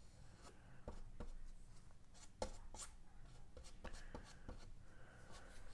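Faint scratching and light taps of a small applicator dabbing and pushing epoxy through fiberglass cloth onto a wooden wing, a few irregular strokes every second or so.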